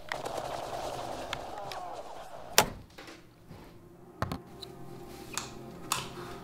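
Video-game sound with gunfire and voices plays until a sharp thunk about two and a half seconds in cuts it off, the sound of the power going out. A few faint clicks follow in the quieter room.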